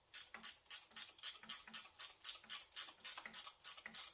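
Ratchet wrench clicking at about four clicks a second as a bolt is loosened.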